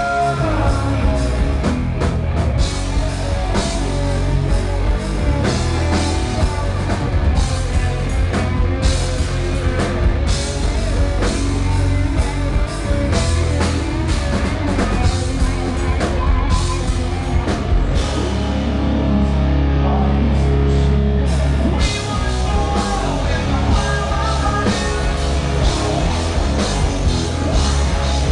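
Rock band playing live and loud: electric guitars, bass and drum kit with a singer. About two-thirds of the way through, the drums drop out for a few seconds under a held low note, then the full band comes back in.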